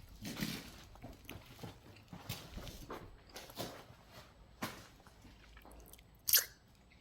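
Soil and grit crunching and scraping in irregular strokes, with one sharper, louder scrape about six seconds in.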